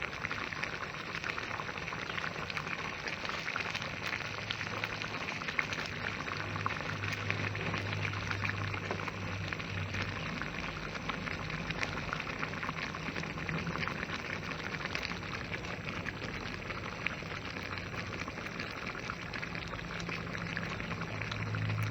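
Thickening white sauce of butter, flour, milk and cheese bubbling steadily in a pan over the heat, with a dense patter of small pops. A faint low hum comes and goes underneath.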